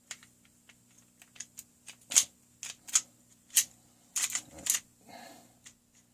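Parts of a field-stripped KWC Colt Commander CO2 BB pistol clicking and clacking as they are handled and fitted back together: a run of sharp, irregular clicks, the loudest bunched between about two and five seconds in.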